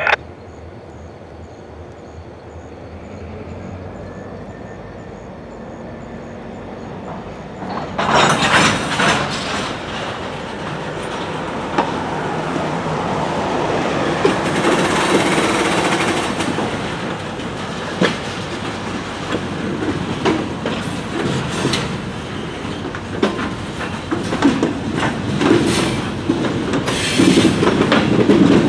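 Freight train of covered hopper cars rolling slowly past, steel wheels and couplers knocking and clanking on the rails. It is quieter at first and turns suddenly louder about eight seconds in.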